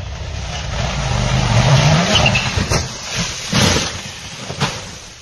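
Toyota GR Yaris Rally1 rally car approaching fast with its engine rising in pitch, then crashing off the gravel road into the trees. Three heavy impacts come about two and a half, three and a half and four and a half seconds in, the middle one loudest.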